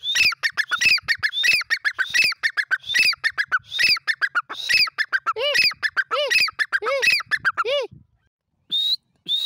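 Grey francolin (Dakhni teetar) calling: a long run of rapid, shrill, repeated notes that stops about eight seconds in, followed by a brief single call near the end.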